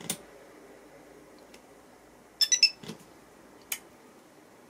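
Induction cooker control board's buzzer playing a quick run of three or four high beeps about halfway through, the power-on chime as the touch power button finally registers and the cooker starts up. A few sharp clicks come before and after it.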